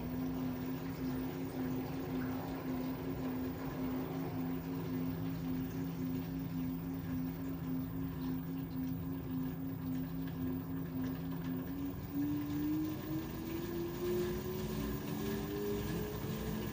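LG 13 kg washer-dryer spinning, its motor giving a steady hum-whine. About twelve seconds in, the pitch starts rising steadily as the drum speeds up into the spin cycle.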